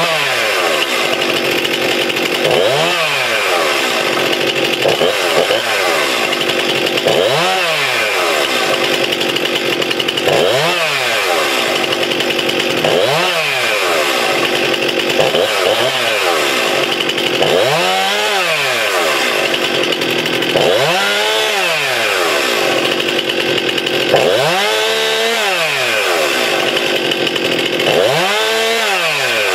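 Brand-new Stihl MS261 C chainsaw's two-stroke engine revved again and again without cutting. About every three seconds the pitch climbs to a peak and falls back to idle.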